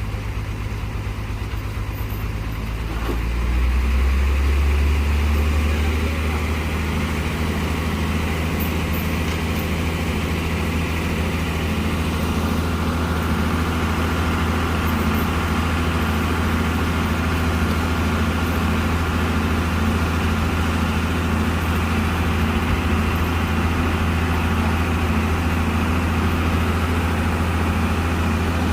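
Heavy truck engine running steadily; about four seconds in its note rises and grows louder, then holds at the new pitch.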